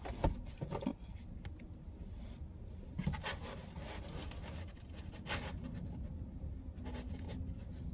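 Close-miked eating sounds of someone chewing pizza: soft chewing with scattered small clicks and smacks.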